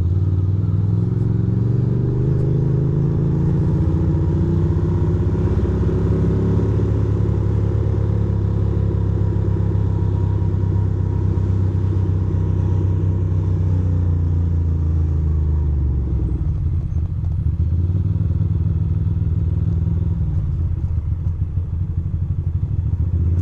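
2006 Ducati Monster 620's air-cooled L-twin engine running as the motorcycle rides along. The engine note holds steady, then drops as the bike slows about two-thirds of the way in, and runs lower and more unevenly near the end.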